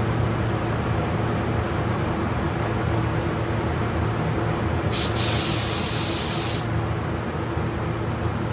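A paint spray gun hisses once for about a second and a half, starting and stopping sharply, as a pass of finish is sprayed over the carbon rigger's repair. Steady background machine noise with a low hum runs under it.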